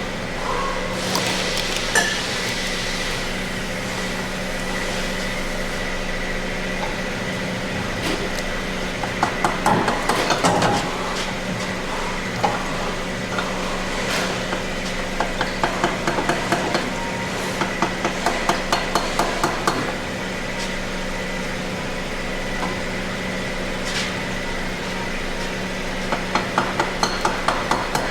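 Hand-tool work on a car's front axle: several runs of quick, evenly spaced metallic taps, about five a second, with scattered single knocks over a steady shop hum.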